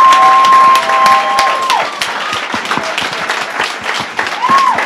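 Audience applauding. A long, high, held call rises over the clapping in the first two seconds, and a shorter call rises and falls near the end.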